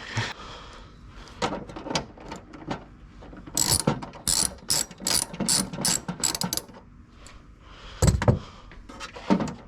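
Ratchet wrench clicking in short runs, densest in the middle, followed by a heavier knock near the end.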